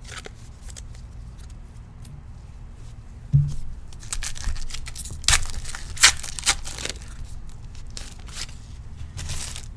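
A foil trading card pack being torn open and its wrapper crinkled, several short sharp rips and rustles, with a soft thump about three seconds in.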